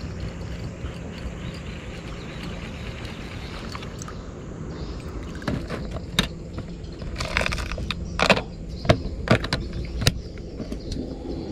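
Clear plastic tackle box of soft frog lures being handled: a run of plastic clicks, clacks and rattles from about halfway through, the sharpest ones like the lid's latches snapping. Before that only a steady low rumble.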